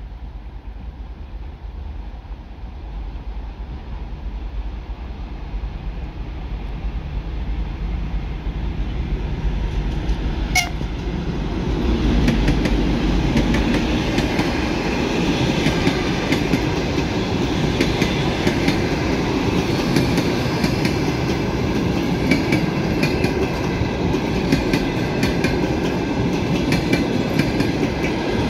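A TEP70 diesel-electric locomotive approaches with a low rumble that grows steadily louder and peaks about twelve seconds in as it passes. A long string of passenger coaches then rolls past, with their wheels clattering rhythmically over the rail joints.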